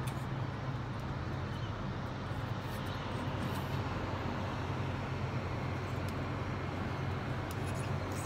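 Steady low hum with an even background rush, like distant city traffic or machinery, and a few faint ticks. No cockatoo calls.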